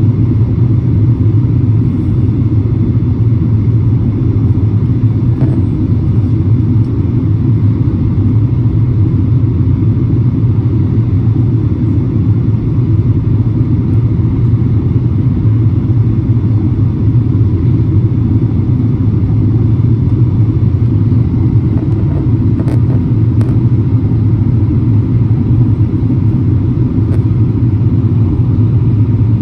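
Steady low rumble of jet engines and rushing airflow heard inside an airliner cabin in flight.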